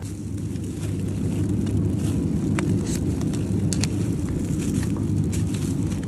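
Steady low hum of an open refrigerated supermarket display case, with scattered light clicks and crackles of plastic meat trays being picked up and handled.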